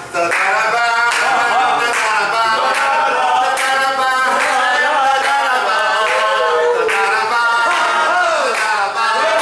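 A group of voices singing or chanting together, unaccompanied.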